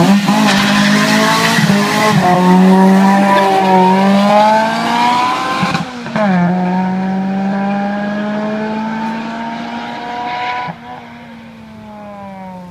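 Toyota Corolla hatchback launching hard from a hill-climb start with a rough burst of wheelspin, its engine revving higher and higher in first gear. It shifts up about six seconds in, climbs again, shifts once more a few seconds later and fades as it draws away up the hill.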